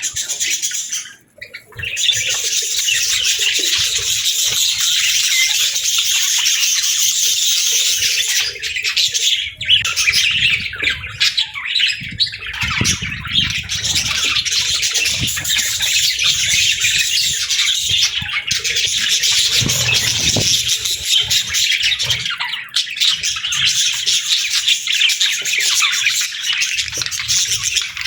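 A flock of budgerigars chattering continuously: dense high-pitched chirps, warbles and squawks overlapping without a break, dipping briefly about a second in.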